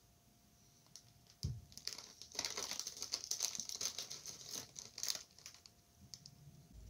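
A single dull thump about a second and a half in, then a plastic biscuit wrapper crinkling and crackling for about three seconds as a biscuit is taken out of it, trailing off into a few small ticks.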